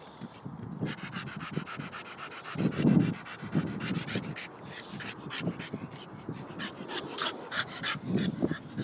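Staffordshire bull terrier panting hard in quick, even breaths, several a second, with a louder low noise about three seconds in and again near the end.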